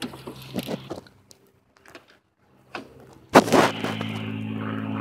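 Clicks and clunks of a Mercedes W123's door and hood being worked, with one loud clunk about three and a half seconds in, followed by a steady low hum.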